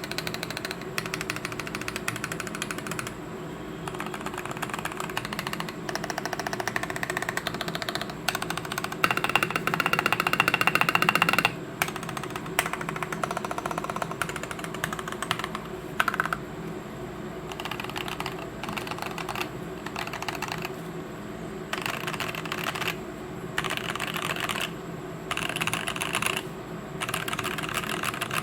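Primus custom mechanical keyboard with Gazzew Boba U4T tactile switches, a brass plate and PBT keycaps being typed on fast, in bursts of rapid keystrokes with short pauses between them. The densest, loudest run comes about a third of the way in.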